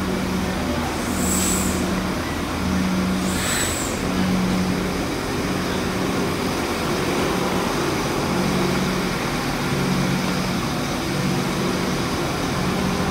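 Idling buses with a low hum that pulses about once a second, and two short hisses of air from air brakes in the first four seconds.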